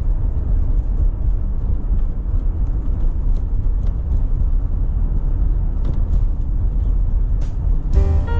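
Steady low rumble of a car driving, its road and tyre noise with faint scattered ticks. Musical notes come in near the end.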